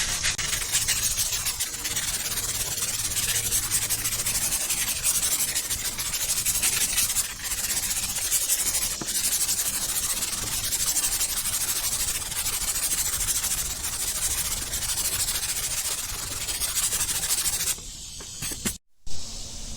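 Sandpaper on a hand sanding block rubbed back and forth over primer and guide coat on a car body panel, a steady scratching that stops about 18 seconds in. The blocking is levelling the primed filler until the dark guide-coat spots are gone.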